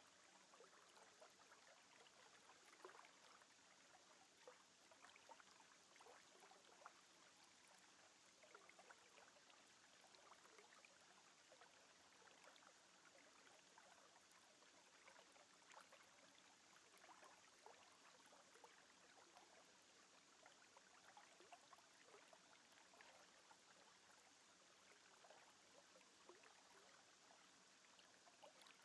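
Near silence: a faint steady hiss sprinkled with small soft crackles.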